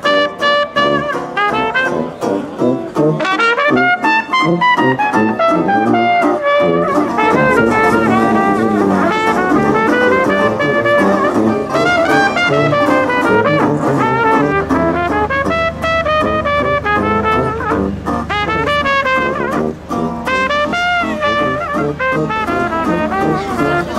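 Small jazz band playing, a trumpet carrying the tune over a resonator guitar.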